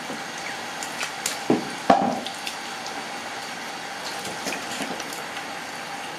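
Water running steadily from a hose, with wet slaps and splashes as live fish are picked off a wet concrete floor and dropped into a basin of water; the two loudest splashes come about one and a half and two seconds in.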